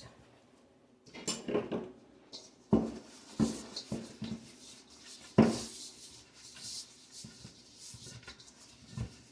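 Kitchen dishes and utensils knocking and clattering on a counter, a few separate knocks with the loudest about five seconds in.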